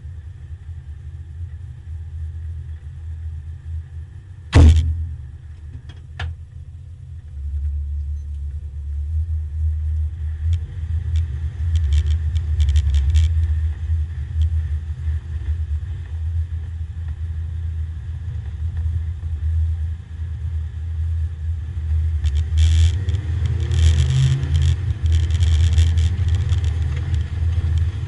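Porsche 924 race car's engine heard from inside the stripped, caged cabin, running with a low rumble, then pulling away and growing louder as the car rolls off at low speed. One loud thump about four and a half seconds in, and rattles near the end.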